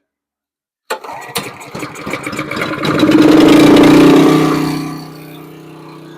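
Honda GX270 single-cylinder engine on a pressure washer starting about a second in, firing unevenly at first, then running up loud to full speed and settling to a steady run near the end. It runs again after its leaking carburetor was replaced, curing the no-start.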